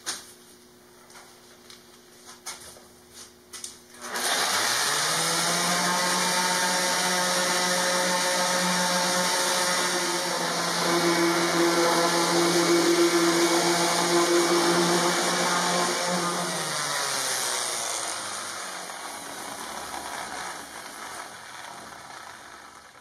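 DeWalt random orbit sander switched on about four seconds in, spinning up and running steadily while sanding a wooden panel, then switched off and winding down with a falling pitch over the last several seconds.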